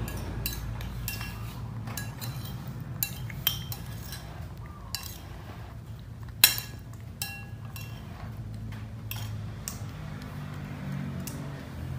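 Metal spoon clinking and scraping against a ceramic bowl while eating, in scattered light clinks, the loudest about six and a half seconds in.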